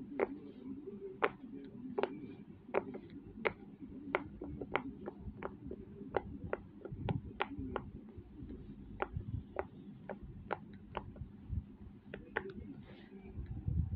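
Silicone pop-it fidget toy, its bubbles pressed in one after another by fingers: a string of small sharp pops at about two a second, unevenly spaced, over soft low handling noise.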